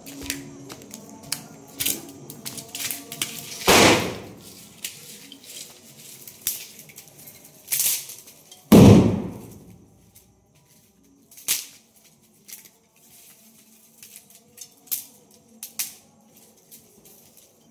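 Misfired firecrackers going off in a fire one after another: irregular sharp cracks and bangs, the two loudest about four and nine seconds in, with smaller pops scattered between and fewer in the later part.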